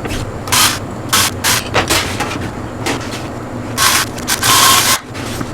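A run of short scraping and rustling handling sounds, the longest near the end, over a steady low hum.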